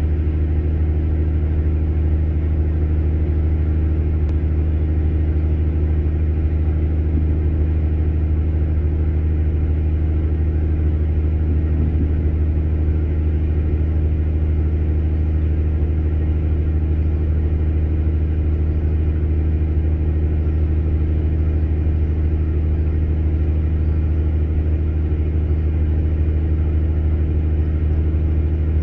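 An engine running steadily at constant speed: a deep, even hum that does not change.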